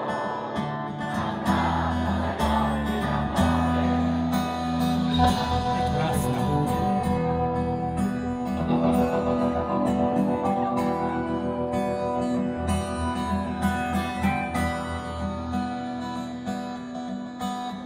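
Live folk-rock band playing: strummed acoustic guitar over bass and drums, with a steady beat.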